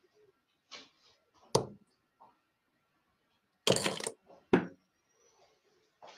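Steel-tip darts thudding into a Target Pro Tour bristle dartboard: three sharp strikes, the first about one and a half seconds in and the last two close together near the middle.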